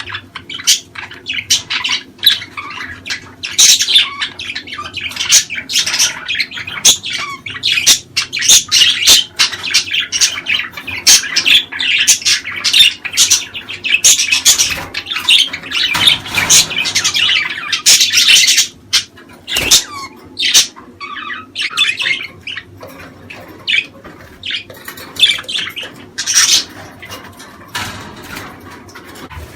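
Budgerigars chattering: a dense, near-continuous run of short chirps and squawks, a little sparser in the last third.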